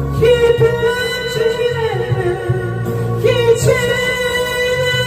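High-pitched singing voice holding two long notes over a rock ballad backing track with bass, the second note starting about three seconds in.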